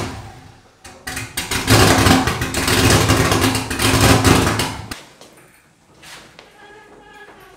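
Chevrolet Silverado's 5.3-litre V8 running loud for about four seconds, then dropping away to a much quieter background about five seconds in.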